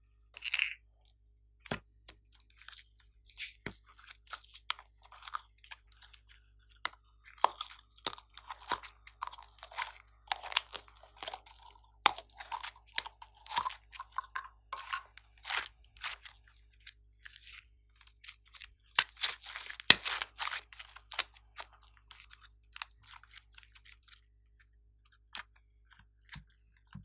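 Soft pink clay being scooped from a small plastic pot and squeezed by hand, giving a run of sticky crackles, clicks and squelching pops that are densest about two-thirds of the way in.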